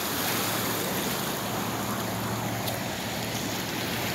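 Street floodwater washing and sloshing in a steady rush as cars push through it, with a vehicle engine running low underneath.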